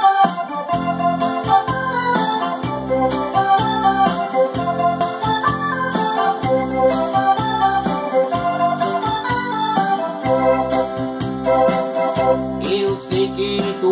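Yamaha electronic keyboard playing an instrumental passage: a melody of short notes over held chords and a bass line, changing near the end.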